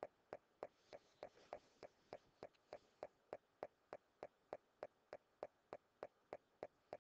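Quiet, evenly spaced clicks, about three and a half a second, keeping a steady rhythm throughout.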